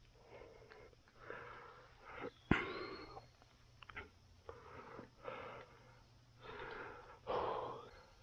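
A person breathing heavily close to the microphone, in irregular puffs, with one sharp knock about two and a half seconds in.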